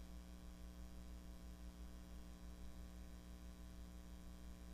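Near silence: room tone with a steady low electrical hum.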